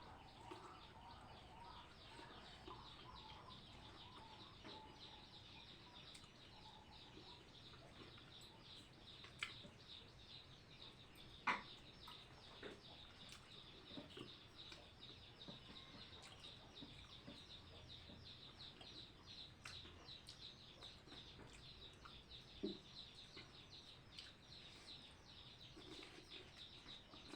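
Faint outdoor bird sounds with a fast, steady, high-pitched chirring throughout, broken by a few sharp clicks, the loudest about eleven seconds in.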